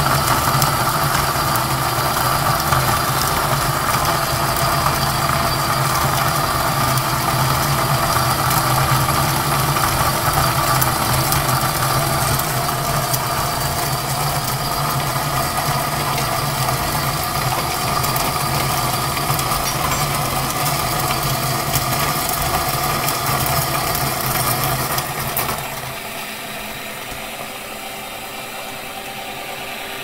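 Breville BCG-6500XL conical burr coffee grinder's small electric motor running steadily, grinding beans through the cone burrs. About 25 seconds in the sound drops and gets thinner, its low hum gone, as the hopper runs empty.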